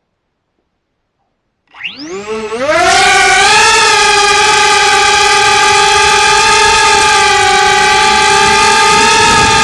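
Tiny-whoop quadcopter's motors and propellers spinning up from rest about two seconds in, the whine rising quickly in pitch, then holding a loud, steady whine as the drone lifts off and flies.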